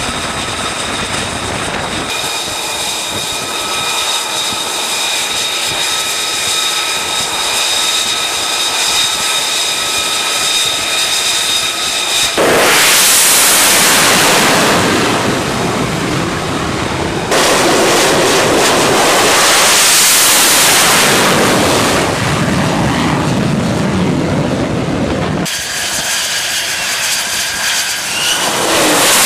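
F-35 fighter jet's turbofan engine: a steady high whine for about twelve seconds, then loud jet roar as the jets take off from the carrier deck, changing abruptly several times.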